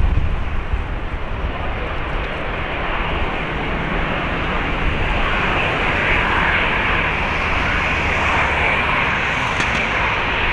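Airbus A330-300 with Rolls-Royce Trent 700 turbofans at takeoff thrust, rotating and lifting off. A steady jet-engine noise grows louder and brighter from about three seconds in as the aircraft climbs away.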